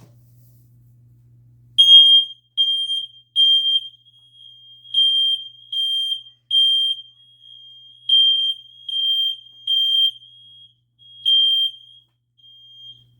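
Firex i4618AC smoke alarm sounding its piercing high beep on a test: three beeps, a pause, then three more, repeating about three times after a short silence at the start. This is the standard three-beep evacuation pattern, showing the alarm works.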